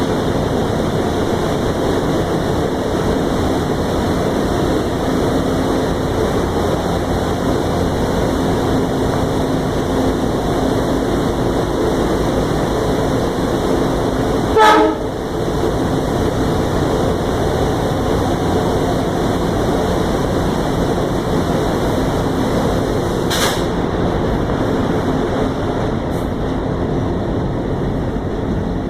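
Diesel locomotive running under way, heard from on board: a steady engine hum with rail and wind noise. About halfway through the horn gives one short, loud toot.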